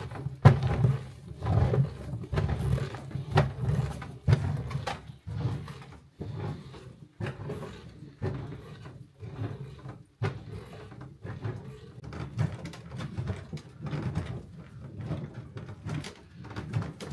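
Long wooden paddle beating a thick whipped sugar-and-egg-white halva mixture in a large metal cauldron. The strokes are rhythmic, about two a second, and come faster near the end.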